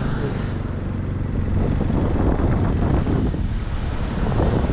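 Motorcycle engine running while riding along, mixed with wind rumbling on the microphone.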